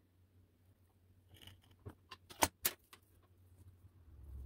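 Spatula cutting through bread pudding in a glass baking dish, with a few short knocks of the spatula against the glass, two sharpest about two and a half seconds in.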